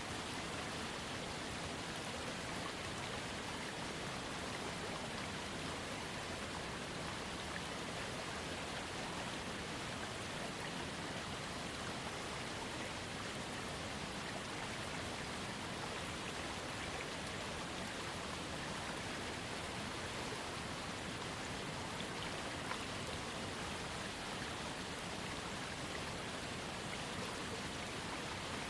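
Small waterfall fed by a trickling creek: water falling and splashing in a steady, even rush with no change.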